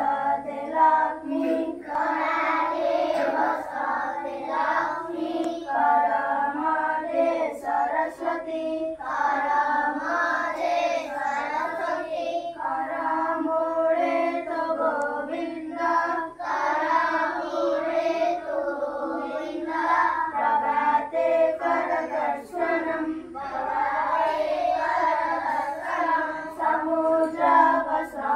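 A group of schoolchildren singing a morning prayer together in unison, without a break.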